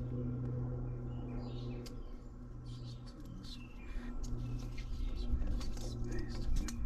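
Small birds chirping in short calls over a steady low hum, with a few sharp clicks about halfway through and near the end as a brass tank tap is twisted loose by hand.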